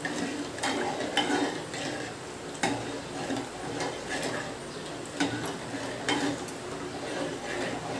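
Metal spoon stirring thick horse gram flour batter in a metal pot, scraping around it and knocking against the pot's side every second or so. The batter is stirred without stopping to keep it from forming lumps.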